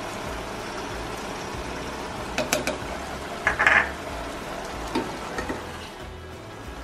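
Pot of pork, carrot and potato stew in soy sauce simmering steadily, with a few sharp knocks and a short scraping rush about two and a half to four seconds in as a spoonful of brown sugar is tipped in, then light knocks of a wooden spatula stirring it.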